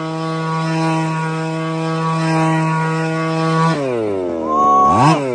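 Petrol RC truck's 25cc two-stroke engine running at steady high revs, then its pitch falls sharply about three and a half seconds in and swoops briefly back up near the end.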